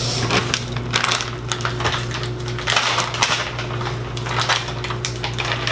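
Dog-treat packaging being handled, with rapid, irregular crinkling and clicking throughout.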